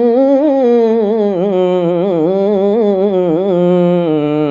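A man singing an Urdu naat unaccompanied, drawing out one long ornamented note that wavers up and down in pitch.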